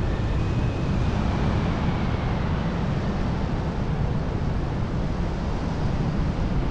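Wind rushing over the camera microphone of a paraglider in flight: a steady low rumble of airflow.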